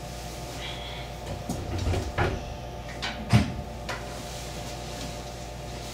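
A few knocks and clunks inside the cab of a stationary JR West 225 series electric train as the driver comes in and takes the driving position, the sharpest a little over three seconds in. Under them runs the standing train's steady electrical hum.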